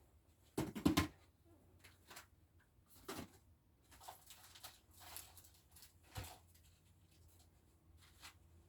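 Faint, scattered knocks and rustles of someone searching through belongings, with a cluster of louder knocks about a second in and single knocks every second or so after.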